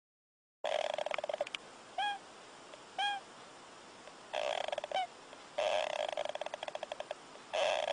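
A sleeping animal snoring: rattling snores about a second long, with short whistling squeaks between them, starting about half a second in.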